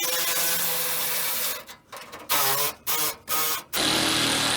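Battery-powered power tool, an impact wrench or driver, running on the Bronco's front-end bolts in bursts: one long run of about a second and a half, three short blips, then another run near the end. Its battery is running low.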